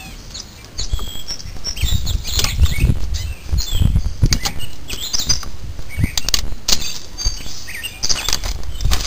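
Irregular metallic clinks and knocks of hand tools and rear brake parts being handled, with small birds chirping in the background.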